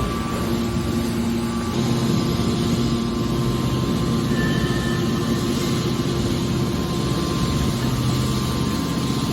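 Metal baler machinery running: a steady mechanical drone with a low hum.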